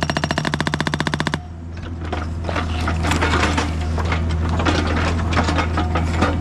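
Excavator-mounted hydraulic breaker hammering rock with rapid, even blows over the excavator's running diesel engine. The hammer stops abruptly about a second and a half in, and the engine keeps running under irregular clattering and crunching of broken rock.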